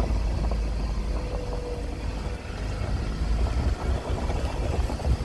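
An engine idling, a steady low rumble.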